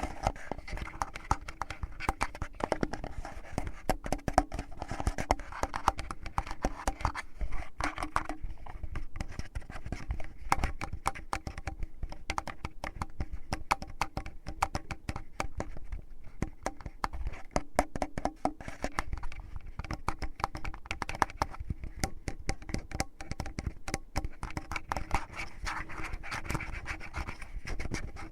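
Fingers rubbing, scratching and tapping in the ear of a binaural microphone, a rough finger ear-cleaning ASMR sound: a dense, irregular stream of close, crackly scratches and taps.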